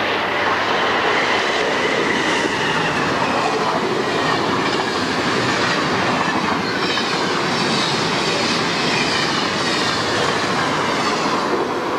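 Amtrak passenger train, an AEM-7 electric locomotive hauling Amfleet coaches, passing close at speed: a loud, steady rush of wheels on rail with clickety-clack over the rail joints. Thin high whines slide down in pitch from time to time.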